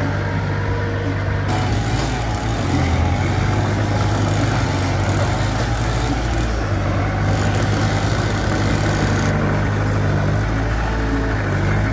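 Mitsubishi BD2F bulldozer's diesel engine running steadily under work, its low drone shifting slightly in pitch a few times.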